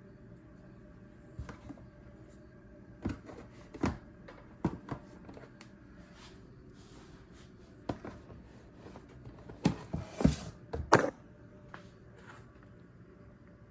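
Irregular knocks and thuds from handling a snake enclosure, several in quick succession, the loudest cluster about ten seconds in.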